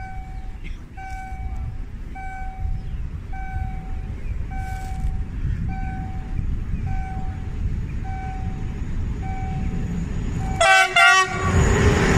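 Level-crossing warning signal sounding a short tone about once a second over the low rumble of an approaching diesel freight locomotive hauling tank wagons. Near the end the locomotive gives two short horn toots, then its engine grows louder as it reaches the crossing.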